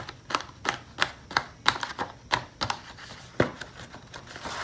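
Paper pages of a disc-bound planner being flipped through quickly: a rapid, irregular run of sharp paper flicks and snaps, about three a second.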